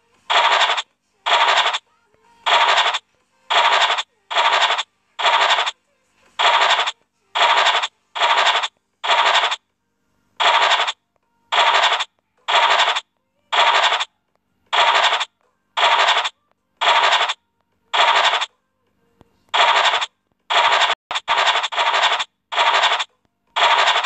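Online scratch-card game's scratch sound effect: a short scratching burst each time a star is scratched off to reveal a number, about one a second, with a few coming quicker near the end.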